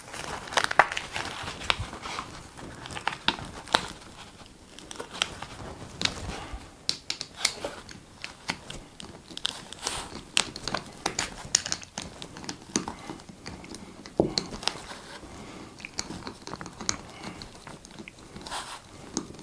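Handling noise from fitting hardware into a neoprene foot strap: rustling of the strap and irregular small clicks and taps of a metal screw, washers and a screwdriver.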